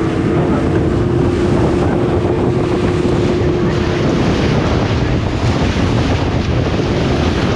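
Heavy wind buffeting the microphone on a boat out at sea, with a steady engine hum underneath that fades out about four seconds in.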